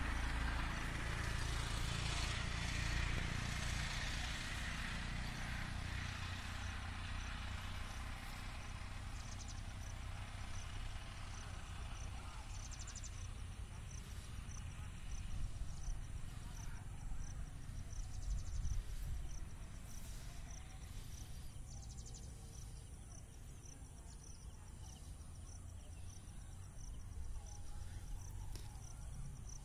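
Distant road traffic noise fading away over the first dozen seconds, then an insect chirping in an even high-pitched pulse about twice a second over a low rumble.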